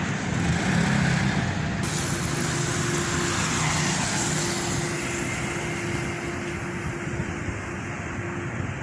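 Street traffic noise: vehicle engines running and tyres on the road, with a louder swell a few seconds in as a vehicle goes by and a faint steady hum underneath.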